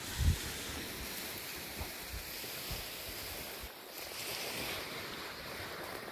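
Steady rushing outdoor noise of wind and lakeshore water. A low thump of wind buffeting the microphone comes about a third of a second in, with a few softer bumps after.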